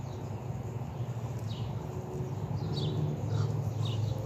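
Birds chirping: short, high, downward-sliding calls repeating every half second to a second, over a low steady hum.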